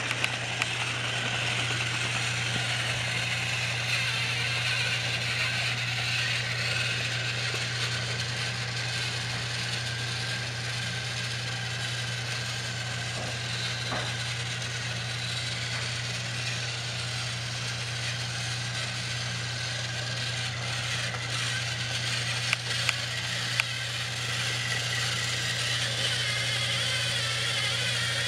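Battery-powered Trackmaster toy train's geared motor whirring steadily as it runs along plastic track, with a few sharp clicks about three quarters of the way through.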